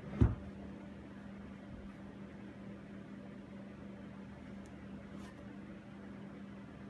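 A single dull knock about a quarter second in, a hand bumping the wooden chair while pressing putty into a spindle joint. After it there is only a steady low hum.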